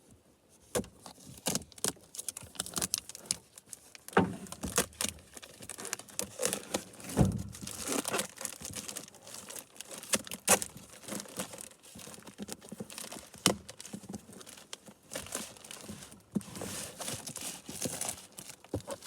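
Box and packaging being opened and handled: irregular crinkling, tearing and rustling with a few sharper knocks.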